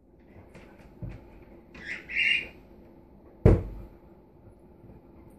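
Lab–pit bull mix puppy giving a short high-pitched whine at the oven drawer about two seconds in, followed a second later by a single sudden thump. A faint knock comes about a second in.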